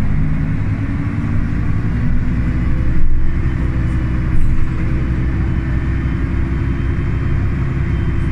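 Jelcz M121MB/3 city bus's diesel engine running steadily while the bus drives, heard loud from the rear seats inside the cabin. A knock about three seconds in and a lighter one a second or so later.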